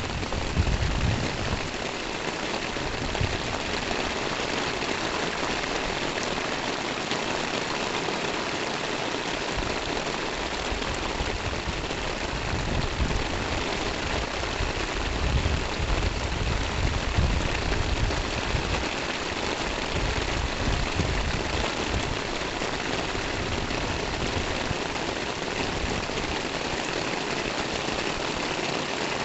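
Steady rain falling: an even hiss of drops on paving, roofs and trees, with irregular low rumbling underneath.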